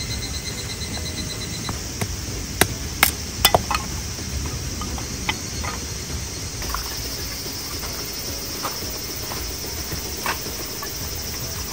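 Hatchet chopping kindling on a wooden log round: a handful of sharp wooden knocks from about two to four seconds in, then a few lighter clacks of split sticks being handled. A steady high insect chirr runs underneath.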